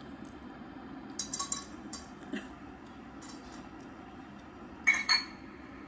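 Wooden chopsticks clinking against a bowl during noodle eating: a cluster of light clicks about a second in, and two sharper ringing clinks near the end. A steady low background hum runs underneath.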